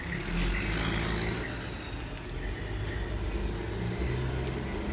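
Motor vehicle engine running, a steady low rumble with a few held tones that shift slightly in pitch, louder in the first second.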